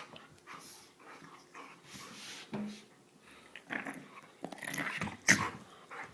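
Two dogs play-fighting, with growls, whines and scuffling in irregular short bursts, and one sharp, loud sound a little over five seconds in.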